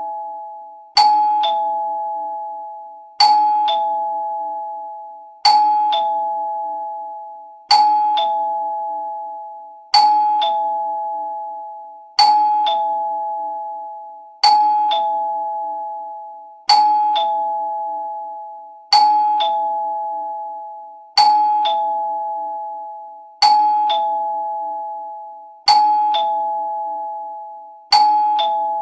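Two-tone doorbell chime ringing ding-dong over and over: a higher note, then a lower one about half a second later, each ringing on and fading. It repeats about every two and a quarter seconds, some thirteen times.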